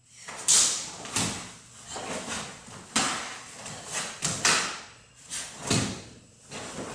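Karate gi snapping and bare feet striking a tiled floor as a kata's strikes and kick are performed: about six sharp cracks, each ringing briefly in the room.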